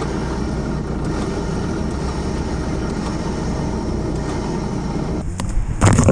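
Toyota off-road vehicle's engine idling steadily. About five seconds in, it gives way to a burst of loud rumbling and knocks.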